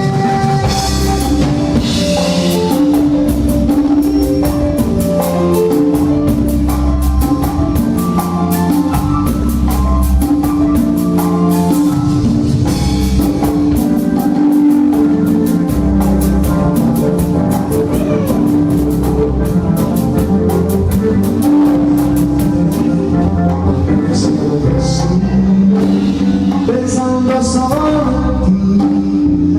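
Live band music: the cumbia group playing an instrumental stretch with a drum kit and a steady beat.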